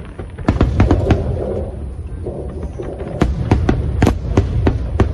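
Aerial fireworks going off, recorded on an old mobile phone. There are two runs of sharp pops and crackles, one about half a second in and another from about three seconds, over a continuous low rumble of booms.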